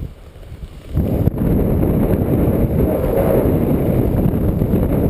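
Strong gusty wind buffeting the camera microphone as a low, rough rumble. It jumps up sharply about a second in and stays loud.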